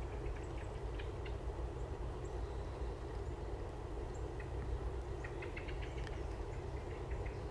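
Small birds giving short, high chirps: a few near the start, then a quick run of them from about five to six and a half seconds in. Under them is a steady low rumble.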